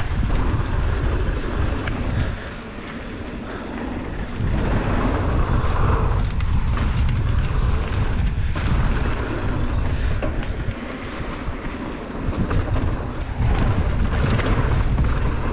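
Mountain bike ridden downhill on a bike-park trail: wind buffeting the microphone and tyres rolling over dirt, with many short knocks and rattles from the bike over bumps. The noise eases off twice, briefly.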